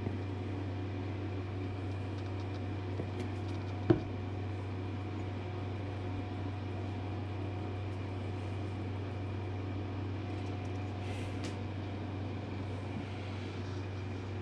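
Steady low mechanical hum, with a few faint steady tones above it, and a single sharp click about four seconds in.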